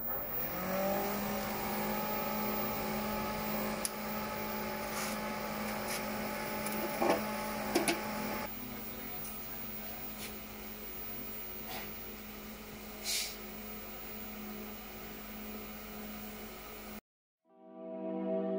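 TIG200P inverter TIG welder switched on: its cooling fan and electronics spin up with a hum that rises in pitch in the first second, then run steadily with a hiss and a few light clicks. Near the end the sound cuts out and soft ambient music comes in.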